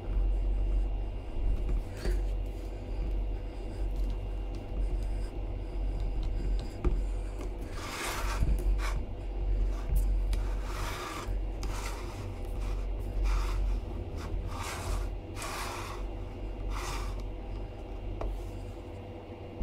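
Plastic figure parts rubbing and scraping as pieces are handled and fitted by hand, over a low rumble of handling noise; from about eight seconds in come a dozen or so short scrapes in quick succession.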